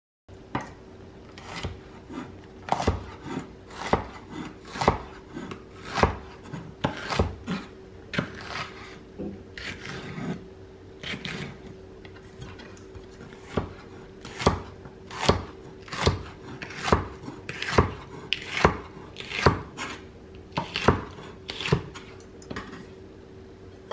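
Kitchen knife chopping food, a sharp strike roughly once a second with a few quicker doubles. There are fewer strikes for a stretch around the middle.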